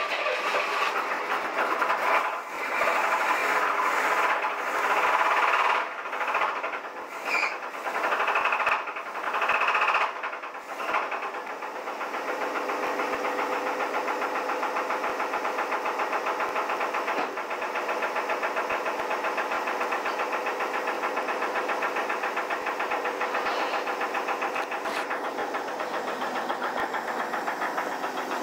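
A 1983 Chevrolet S10's 2.8 V6 engine running just after starting. It rises and falls unevenly for about the first ten seconds, then settles into a steady idle with a fast, regular knock. This is a rod knock on the #1 cylinder.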